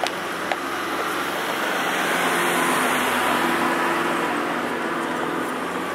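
A motor vehicle passing along a city street: the engine and tyre noise build to a peak around the middle and then fade away.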